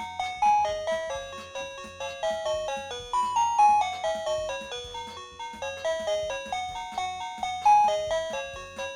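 OMERIL wireless doorbell's plug-in chime receiver playing one of its 32 electronic tunes: a quick melody of bright beeping notes, about three or four a second.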